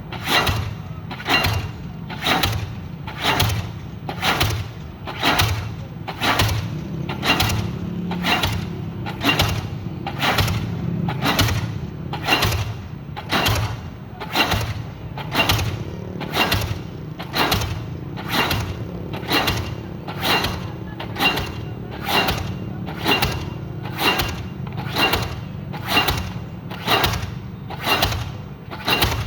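Excavator pounding concrete sheet piles into a riverbank: evenly spaced heavy blows, about three every two seconds, over the steady hum of its diesel engine.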